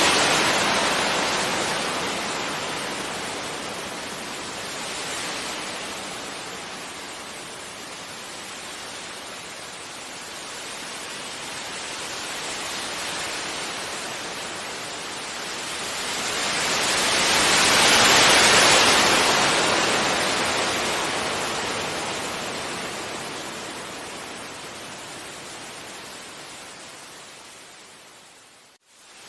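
Gentle sea waves washing onto a beach, the surf swelling and ebbing slowly, with one large wave building and breaking about two-thirds of the way through. Near the end the sound cuts out abruptly for a moment, then comes back quieter.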